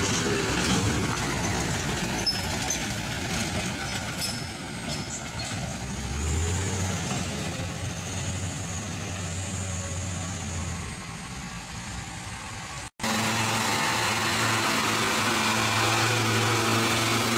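Mitsubishi light trucks' diesel engines running under load as the trucks crawl along a muddy dirt track, the engine note held steady. The sound cuts out for an instant about two-thirds through, then a nearer truck's diesel comes in, equally steady.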